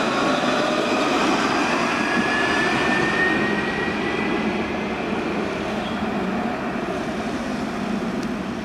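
Alstom Citadis 402 tram running past and pulling away on its rails: a steady rolling rumble with a whine that rises in pitch over the first few seconds as it picks up speed, then fading as it draws off.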